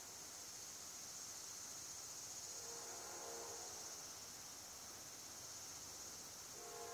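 Steady high-pitched insect chorus. A distant train horn sounds faintly about midway and again near the end, as a train approaches.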